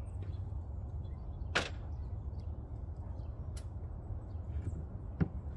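Plastic air filter housing cover on a Freightliner Cascadia being pushed back into place by hand: a few sharp clicks and knocks, the clearest about a second and a half in and another about two seconds later, over a steady low rumble.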